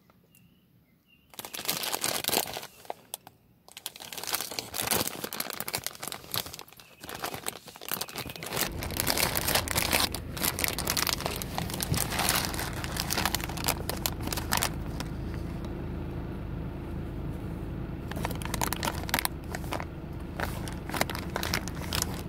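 Plastic candy bag of Big Chewy Nerds crinkling loudly as it is handled and opened, then rustling as fingers dig into the candies. A steady low hum comes in about eight seconds in.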